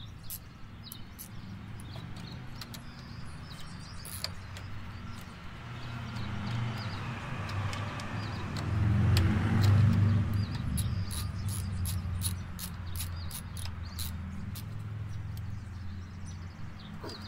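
A motor vehicle's engine running steadily, swelling to its loudest about nine to ten seconds in and then easing off, as a vehicle passing by does, over scattered small clicks and taps from hands working on tractor wiring and connectors.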